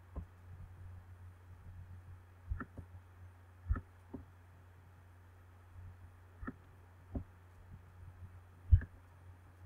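Computer mouse clicks, about eight scattered irregularly, the loudest near the end, over a steady low hum.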